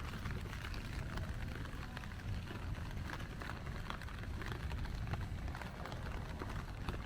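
Steady rain on a city street, with scattered sharp drop ticks over a low, continuous urban rumble.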